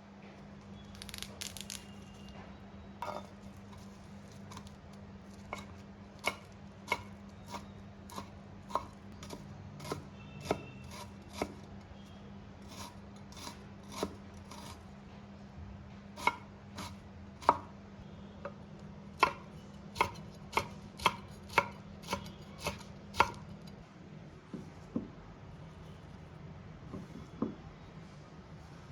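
Knife chopping on a cutting board: a run of sharp strokes, one or two a second, that stops a few seconds before the end, over a faint steady low hum.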